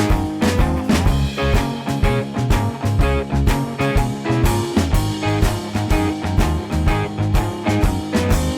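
Background music: a rock-style track with guitar and a steady beat.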